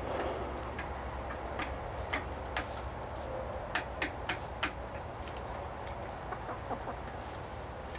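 Buff Orpington hens clucking softly, with a scatter of sharp clicks and taps that bunch together around the middle.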